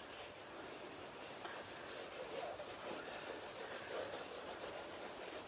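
Watercolour crayon rubbing across cartridge paper on a flip-chart pad: faint, repeated colouring-in strokes.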